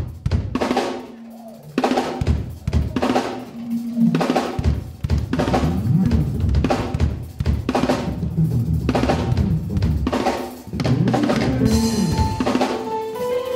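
Live gospel band playing: a drum kit beats a steady groove with bass guitar and keyboard, the full band coming in about two seconds after a loud opening hit. Near the end a rising run of held notes enters over the groove.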